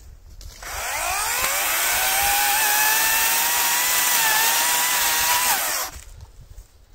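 Parkside PKSA 40-Li A1 dual-battery cordless chainsaw's electric motor spinning up with a rising whine, running steadily while cutting through a thin branch, then winding down and stopping about a second before the end.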